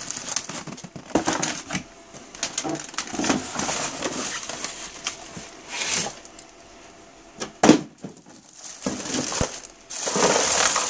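Plastic bags and cardboard packaging rustling and crinkling as they are handled and pulled apart, with a sharp knock about three-quarters of the way through and a louder burst of crinkling near the end.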